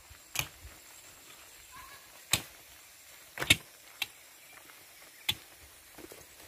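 A handful of sharp, irregular knocks or taps, with a close pair about halfway through the loudest, over a quiet background.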